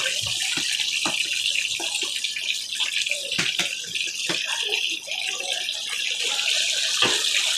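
Chicken pieces deep-frying in hot oil in a large wok: a steady sizzle with scattered pops and crackles.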